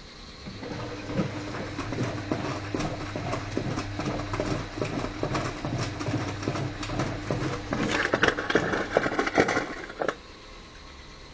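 Miele W453 front-loading washing machine in its main wash: the drum turns with a motor hum while wet laundry and water slosh and slap irregularly inside. The splashing grows louder and busier about eight seconds in, then the drum stops about ten seconds in.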